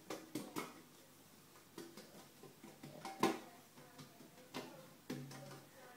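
Light knocks and taps from a round baking tray being tilted and shaken in the hands to spread flour over its greased surface, with one sharper knock about three seconds in.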